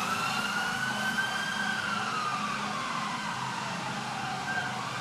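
A siren wailing: one slow rise in pitch, then a long fall, over a steady low rumble.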